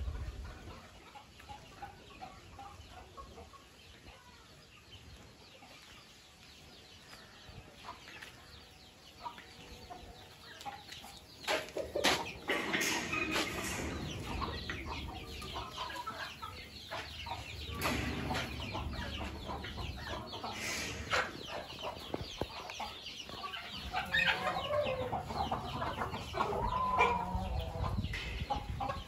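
A flock of country chickens, Kadaknath and Aseel breeds, clucking in a shed. The calls grow louder about ten seconds in, with a few sharp knocks in the middle.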